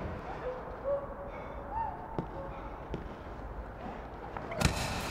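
Blows of a beating landing on a body: a few faint thuds through a quieter stretch, then a run of loud heavy hits starting near the end.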